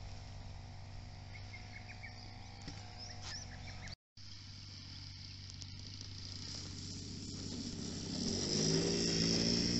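Model airplane engine running, a steady drone at first, then louder and rising in pitch from about eight seconds in as the plane makes its takeoff run across the grass. High insect chirping carries on underneath.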